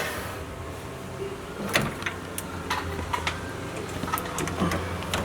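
Scattered light metal clicks and knocks over a low steady hum, as an engine hanging from a shop hoist is worked down into the engine bay.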